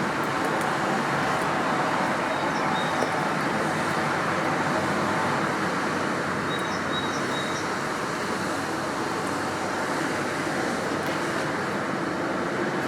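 Steady outdoor background rush of distant traffic-like noise, with two faint clusters of short, high bird chirps, about three seconds in and again about seven seconds in.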